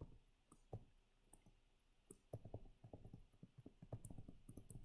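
Faint taps and clicks of a stylus on a tablet screen during handwriting, a few at first and then a quick run of them through the second half.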